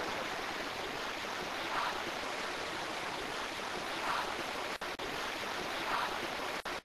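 Steady hiss of a recording's noise floor in a quiet room, with three faint soft sounds about two seconds apart. Two brief dropouts come near the end before the sound cuts off.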